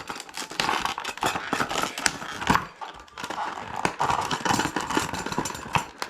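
Plastic packaging crinkling and rustling in the hands, with many irregular small clicks, as a new replacement part is unwrapped and handled.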